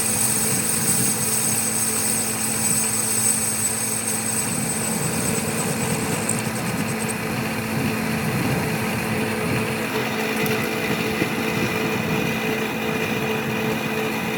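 A workshop machine running steadily, with a high whine that fades out about six seconds in.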